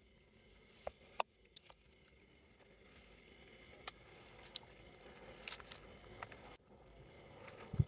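Faint footsteps and rustling of people walking slowly on a dirt path at night, with scattered small clicks and a low thump near the end.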